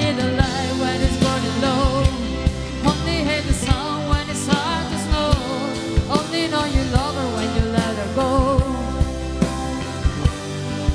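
Live pop band playing: drum kit, electric guitar and keyboard, with a wavering melodic lead line that bends in pitch over a steady drum beat.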